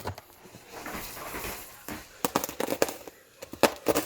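Packaging of a guitar shipping box being opened by hand: rustling, then bursts of sharp crackling and clicking near the middle and again near the end.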